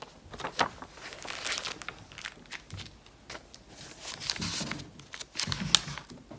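Plastic sticker sheets and paper planner pages being handled, rustling and crinkling irregularly, with a few light taps.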